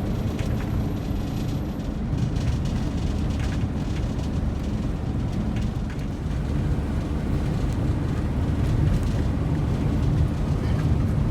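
Steady low rumble of a car's road and wind noise heard inside the cabin, with the car buffeted by strong wind.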